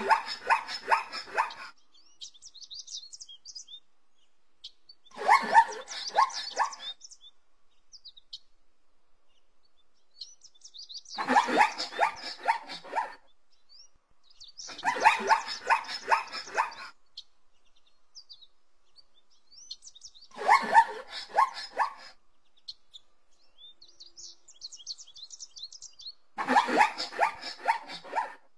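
Zebra calling: six barking brays of about two seconds each, every five seconds or so, each a quick run of pulsed bark-like notes. Faint bird chirps sound between the calls.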